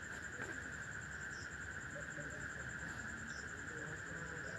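Faint, steady background insect trilling, a continuous drone with a rapid high pulsing above it.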